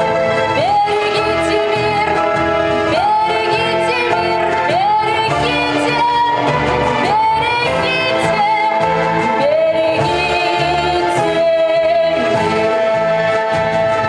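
A woman singing solo into a microphone over an instrumental backing track with a pulsing bass. She slides up into long held notes several times.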